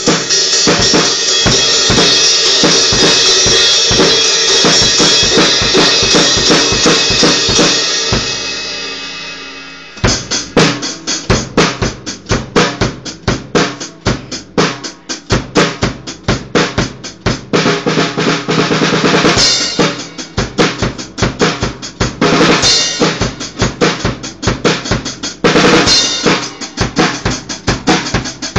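Acoustic drum kit played with sticks: busy playing under a wash of crashing cymbals for about eight seconds, which rings away to quiet. Then a new beat of bass drum and snare starts, with cymbal crashes now and then.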